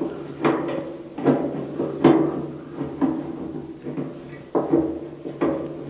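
Ratchet wrench working a bolt on the steel motor bracket of an oil-tank pig roaster: about six clanks roughly a second apart, the hollow steel tank ringing after each.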